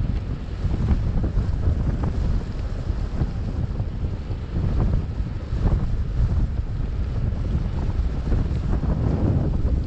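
Wind buffeting the microphone of a paraglider pilot's camera: a loud, gusting low rumble of rushing air.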